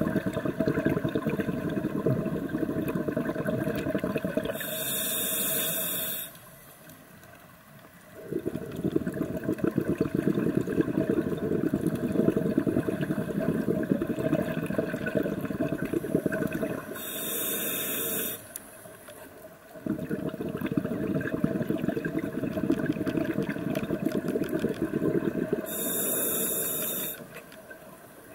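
Scuba diver breathing on a regulator underwater: long rushes of exhaled bubbles, each broken by a short hiss of inhalation and a brief pause, about every nine seconds.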